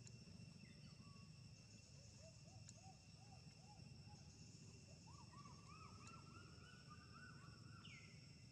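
Faint outdoor ambience: insects droning steadily on high tones, under a low rumble. Over it comes a series of short rise-and-fall whistled calls, a few a second, starting low about two seconds in and climbing higher in pitch over the following seconds. A quick falling sweep follows near the end.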